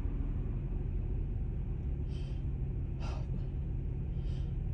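A woman takes short, sharp breaths three times, about two, three and four seconds in, as her nose tickles ahead of another allergy sneeze. A steady low car-cabin rumble runs underneath.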